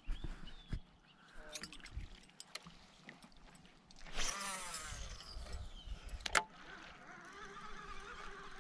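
An animal's wavering cry, falling in pitch, about four seconds in, over scattered light clicks and knocks, with one sharp click shortly after the cry.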